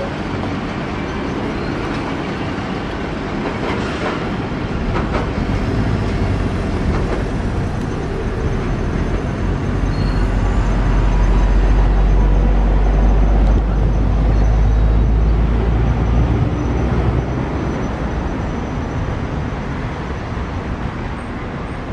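A pair of DF11G diesel locomotives running light on the tracks: a continuous diesel rumble with wheels clicking over the rail. The deep rumble swells about halfway through and eases off toward the end.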